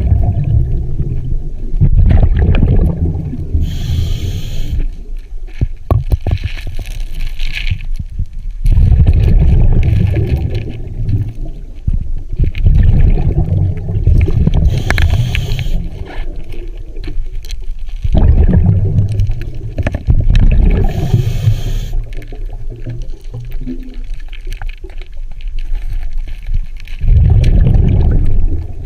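Scuba diver breathing through a regulator underwater: a hiss on each inhale, then a long bubbling rumble as the exhaled air bubbles out, repeating slowly every several seconds.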